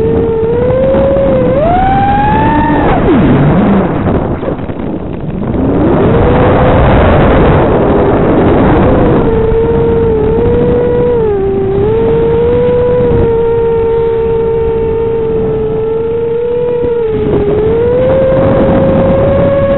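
6-inch FPV quadcopter's brushless motors and propellers whining, the pitch rising and falling with the throttle. The whine climbs high about two seconds in and drops away sharply, is noisier and wavering from about four to nine seconds, then holds fairly steady with small dips.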